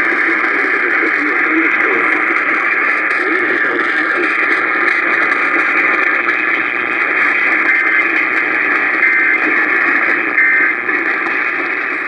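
AM radio receiver tuned to 720 kHz, playing a weak long-distance signal: steady loud static and hiss with faint, garbled programme audio underneath.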